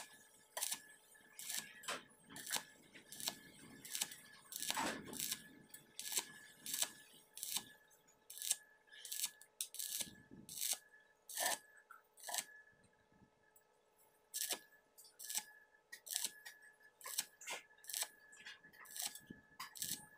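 Stick welding on a steel pipe joint: the electrode's arc crackling in irregular sharp pops, a few each second, with a short lull about two-thirds of the way through.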